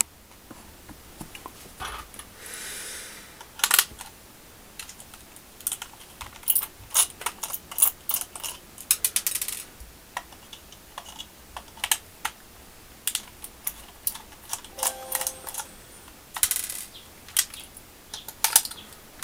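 Irregular sharp clicks and clacks of small hard objects being handled, with a short hiss about two seconds in.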